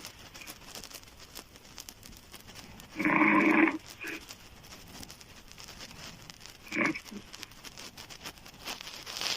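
A woman snoring loudly with her mouth open: one loud, rough snore about three seconds in, a shorter, sharper one near seven seconds, and quiet stretches between.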